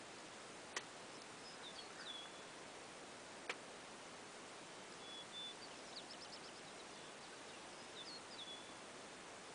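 Small songbirds chirping faintly several times over a steady background hiss, one of them with a quick run of repeated notes about six seconds in. Two sharp clicks, one near the start and one about three and a half seconds in, are the loudest sounds.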